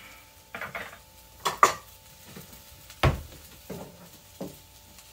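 Ceramic plates clattering as a plate is taken out of a kitchen cabinet, several separate clinks, the loudest about one and a half seconds in. About three seconds in comes a single sharp knock, the cabinet door shutting, followed by two lighter knocks.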